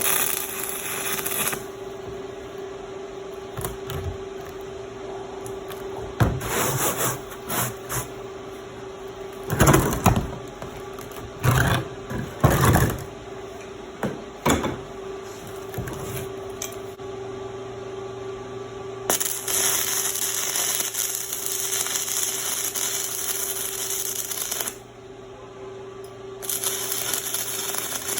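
Stick-welding arc crackling and sizzling in two sustained runs, a long one of about five seconds and then a shorter one near the end, after a series of short bursts and knocks. A steady hum runs underneath.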